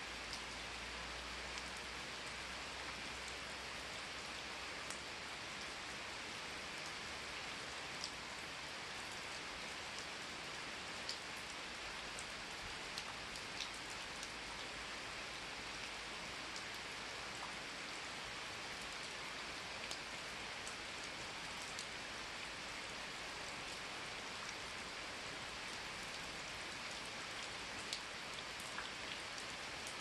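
Steady rain falling on the forest's leaves: an even hiss with scattered sharper drip ticks.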